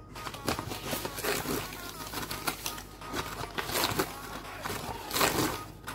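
Metal spoon scraping and tapping against the bottom of a small nonstick saucepan, spreading dry granulated sugar flat, with irregular scrapes and clicks and a longer, louder scrape about five seconds in.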